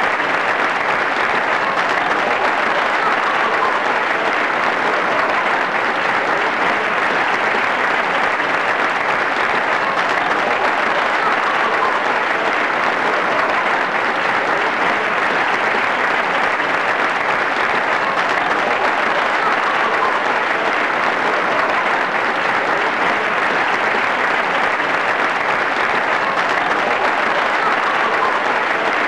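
Steady, even applause from many people clapping, with no breaks or swells.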